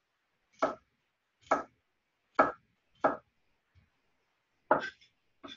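Kitchen knife chopping through a pile of young carrot pieces on a wooden cutting board: six separate cuts, roughly one a second, with a longer pause before the last two.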